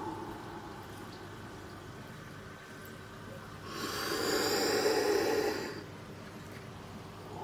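A person's heavy breath: one loud, hissing intake lasting about two seconds near the middle, over a steady low hiss.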